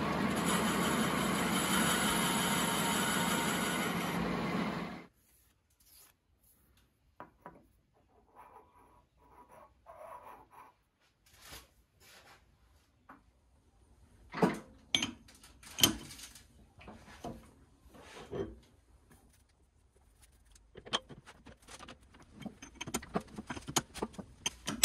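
A machine tool's motor running steadily, then switched off and cutting out about five seconds in. After that come scattered clicks and knocks of metal parts and tools being handled, with a few sharper knocks midway and a busier run of small clatters near the end.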